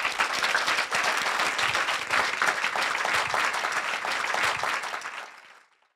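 Audience applauding: many hands clapping in a dense patter that fades away near the end.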